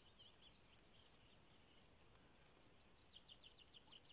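Faint small-songbird song over quiet marsh air: scattered high chirps, then, about two and a half seconds in, a quick run of short descending notes.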